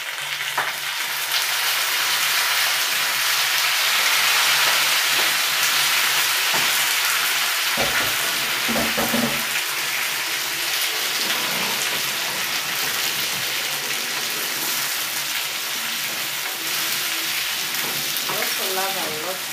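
Frying pan of onions in hot oil sizzling loudly as tomatoes are tipped in, the sizzle jumping up suddenly at the start and then running steady while the pan is stirred.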